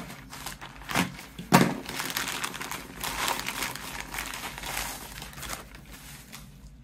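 Plastic poly mailer being torn open, with two sharp rips about a second and a second and a half in, then crinkling of the plastic and bubble wrap as the packet inside is pulled out, fading near the end.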